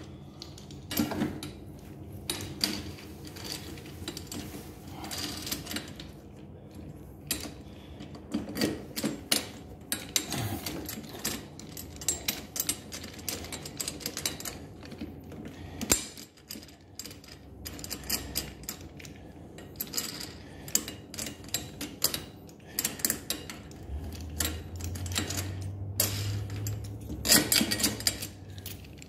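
Irregular clicks, taps and rattles of a Greenworks lawn mower's metal handle tubes and plastic clamp knob being handled, fitted together and tightened during assembly. A low steady hum comes in near the end.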